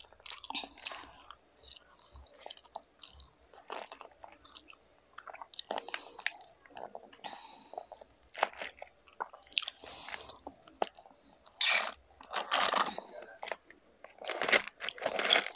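A person biting, crunching and chewing crispy food in irregular bursts, louder near the end.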